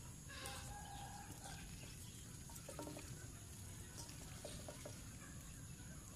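Faint, quiet farmyard sound of domestic fowl foraging, with a few soft, short calls: one about half a second in, and others near the middle, over a steady low background hum.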